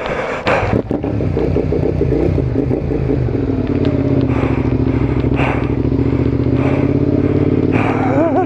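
Suzuki SV650S's V-twin engine catching about half a second in after being push-started, then running steadily.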